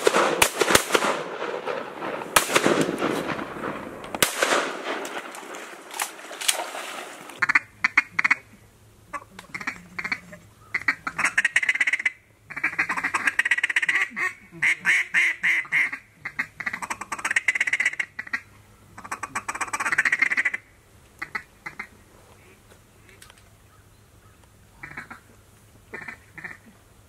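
Rough, loud noise for the first several seconds, then a long run of rapid duck quacking and feeding chatter that breaks off about two-thirds of the way through, leaving scattered short quacks.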